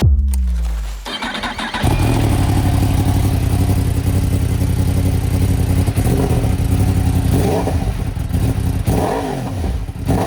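2023 Yamaha R1M's crossplane inline-four motorcycle engine, heard through a modified exhaust. It starts up loud, settles into a steady idle for several seconds, then is blipped with a few short revs near the end.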